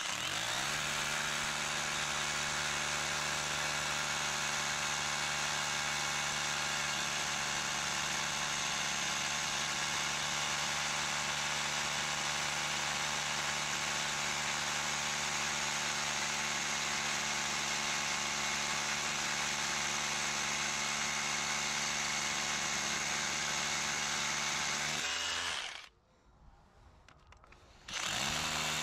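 An electric power tool's motor running at a steady speed. It spins up at the start, winds down and stops about 25 seconds in, then starts up again near the end.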